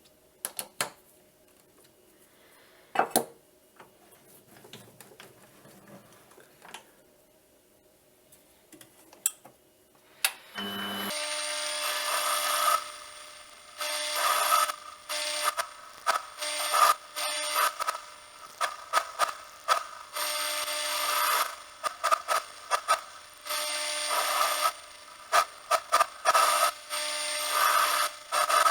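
Small metal lathe: a few clicks of handling, then about ten seconds in the motor spins up and runs steadily while a tool scrapes against the turning metal part in uneven bursts.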